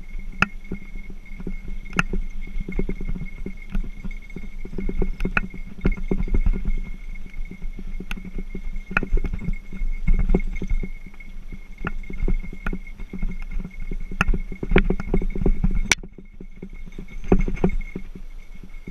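Mountain bike rolling over a rough dirt singletrack: a continuous low rumble of tyres on the trail, with frequent irregular clicks and rattles from the bike over bumps. There is one sharp crack near the end, then it is briefly quieter.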